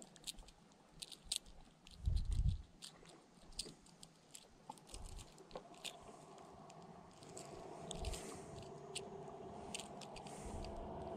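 Irregular light clicking and crackling, with a couple of low thumps, from rod-and-reel handling in a kayak. From about seven seconds in, a steady engine hum comes up and grows louder toward the end.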